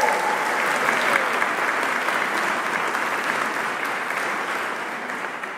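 Wedding guests applauding, an even clapping that dies away near the end.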